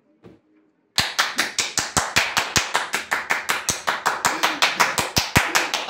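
Rapid hand clapping, about six sharp claps a second, starting about a second in and keeping an even pace.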